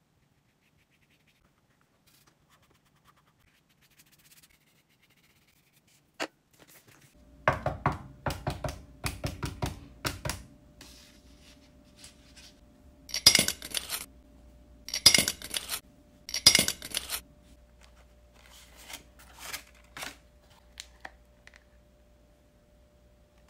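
Paper cutouts being handled: near silence at first, then a sharp click, a run of rustling taps, three loud crinkling bursts in the middle and smaller taps after, over a faint steady hum.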